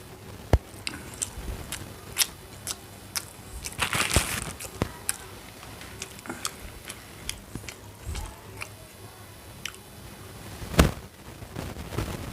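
Close-up eating sounds: chewing and biting, with scattered sharp clicks and crackles. A longer crunch comes about four seconds in, and a louder click near the end.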